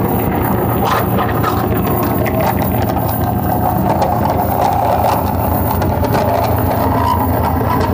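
Live noise music: a loud, unbroken wall of dense electronic noise, heaviest in the low end, with a fast, even throb running under it.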